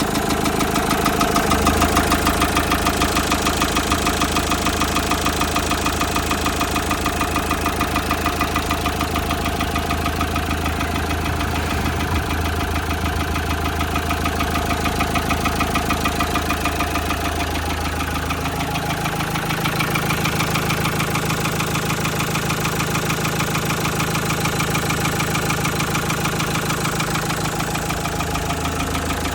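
Car engine idling with a fast, steady knock in time with its running. The uploader takes the knock for a worn big end bearing or an injector fault.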